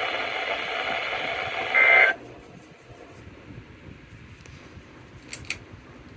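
Emergency Alert System radio broadcast ending with a short two-tone data burst, the end-of-message code, about two seconds in. The audio then cuts to a low hiss, with two brief clicks near the end.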